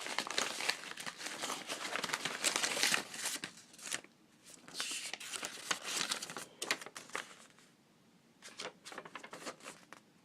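Plastic packaging crinkling and tearing as it is opened by hand. The rustling is dense for the first four seconds, then comes in shorter bursts with quiet gaps.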